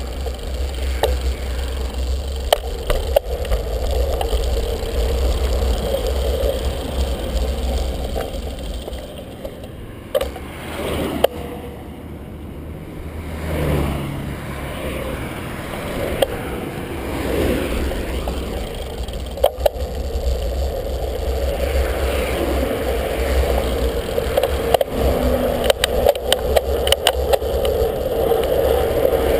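Wind and rolling road noise on a bicycle-mounted camera, a steady low rumble with frequent sharp clicks and rattles as it goes over bumps. A vehicle passes close about 14 seconds in, and the clicks and rattles come thicker near the end.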